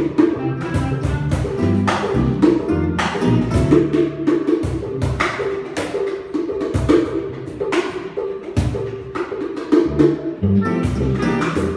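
Live Cuban band playing: clarinet carrying the melody over strummed acoustic guitar, upright bass and hand percussion on cajón and small drums.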